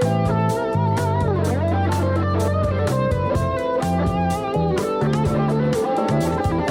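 Background music: an electric guitar rock track with bass and a steady drum beat, with a bending guitar lead about a second in.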